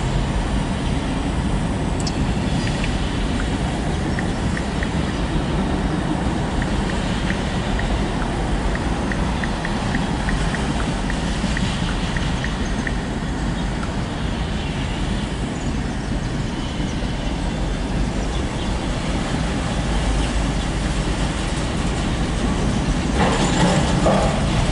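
Loaded autorack freight train rolling past, a steady rumble of wheels on rail heard from inside a car, with a faint run of light clicks for several seconds. A brief louder rush near the end.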